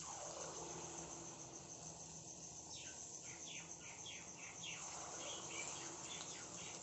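Hot oil sizzling and crackling steadily as banana fritter (gulgule) batter balls deep-fry.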